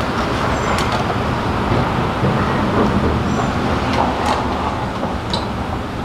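Steady rushing background noise with a few light wooden knocks and taps as a wooden nuc hive box and its frames and cover are handled.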